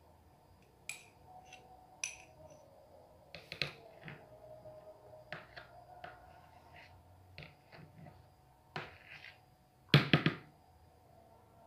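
Metal spoon scraping margarine from a jar and tapping it off into a plastic mixer bowl: scattered small clicks and knocks, with a louder cluster of knocks about ten seconds in.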